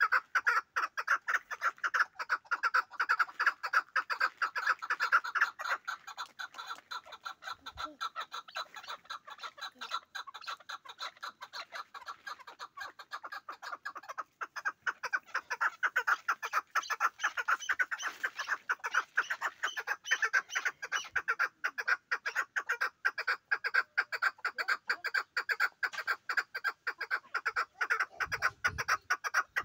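Chukar partridge calling: a fast, continuous string of short, rapidly repeated notes.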